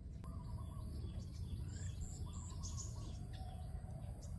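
Birds calling: a high, thin call of four quick, evenly spaced notes, repeated, and lower whistled notes in between, over a steady low rumble.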